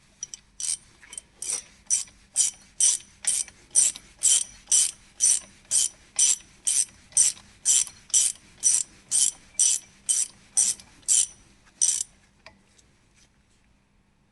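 Hand ratchet wrench being worked back and forth, its pawl clicking on each return stroke in a steady rhythm of a little over two strokes a second, stopping about twelve seconds in.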